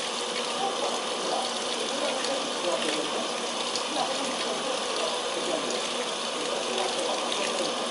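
Brastemp BWL07A washing machine filling with water at the start of a wash cycle: a steady rush of water into the tub.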